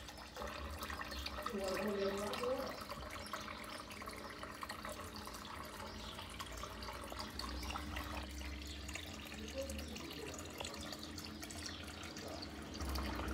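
Small garden fountain running steadily: a thin stream of water from a stone spout trickling and splashing into a clay basin.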